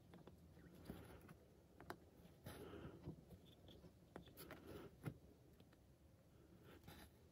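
Faint cross-stitching sounds: soft clicks of a needle poking through 18-count Aida fabric, with short rustling swishes as the floss is drawn through, a few times.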